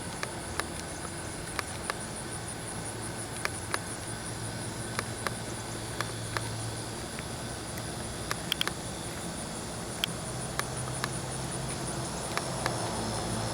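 Outdoor insect chorus, a steady high pulsing trill that runs throughout. Scattered light clicks and a faint low hum sit underneath.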